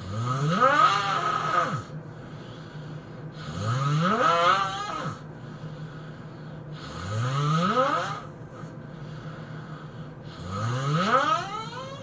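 A person snoring loudly in four snores about three and a half seconds apart, each one rising in pitch as it goes.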